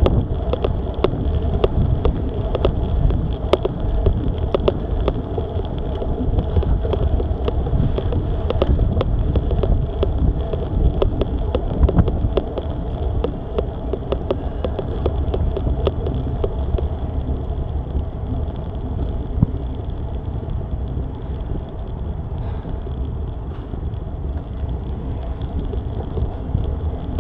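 A cyclist riding uphill, breathing heavily, with wind rumbling on the microphone and the bike rattling in quick clicks over a rough road surface.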